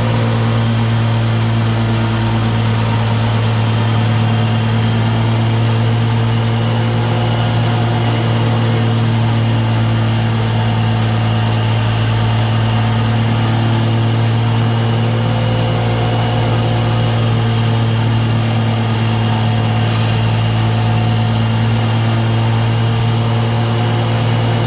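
Mini continuous olive-oil extraction machine running: a steady, unchanging machine hum with a strong low drone and fainter higher tones above it.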